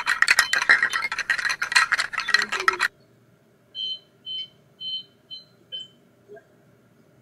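A dense run of clicks and scratches that stops abruptly about three seconds in. Six short high beeps follow, about half a second apart, the last one faint.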